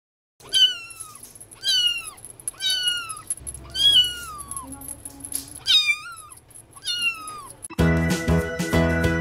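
A kitten meowing over and over, high-pitched, about one meow a second, each call rising then falling in pitch. Near the end background music starts.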